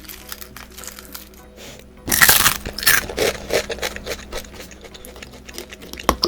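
Crunching bites into crispy fried garlic chicken: a loud crackly crunch about two seconds in, another about a second later, then smaller crunches of chewing and a sharp click near the end, over background music.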